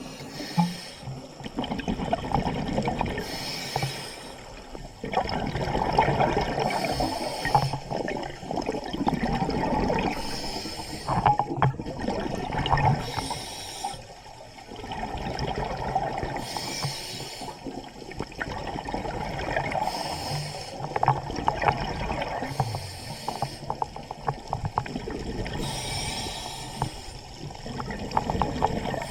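Scuba diver breathing through a regulator underwater: a hiss on each breath and the bubbling rush of exhaled air, repeating in a regular cycle about every three seconds.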